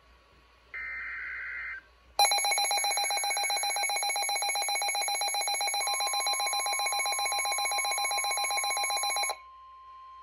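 NOAA Weather Radio warning sequence: a short buzzing data burst of the SAME alert header, then about two seconds in the weather alert radios' loud, rapidly pulsing alarm sounds for about seven seconds, signalling a Severe Thunderstorm Warning. After the alarm stops a steady single-pitch warning tone carries on more quietly.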